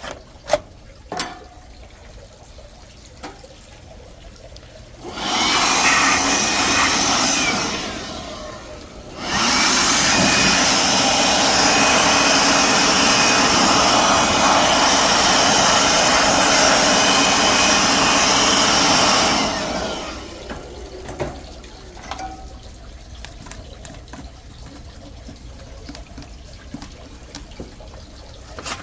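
A cleaning spray blasting into an air conditioner's electrical compartment, a loud steady rushing hiss in two bursts: a short one of about three seconds, then a longer one of about ten seconds. Light clicks and handling noises come before and after.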